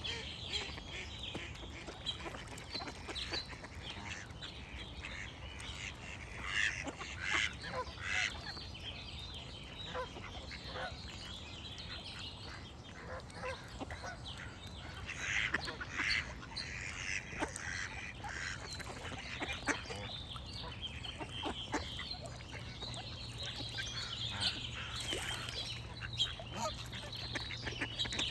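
Ducks quacking and geese honking in scattered bursts, with small birds singing behind them.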